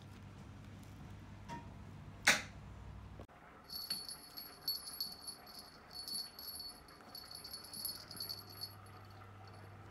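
A small bell jingling in repeated bursts for several seconds as a Bengal kitten bats a dangling pom-pom toy on a cat tree. One sharp click sounds about two seconds in, over a low steady hum that stops at a cut.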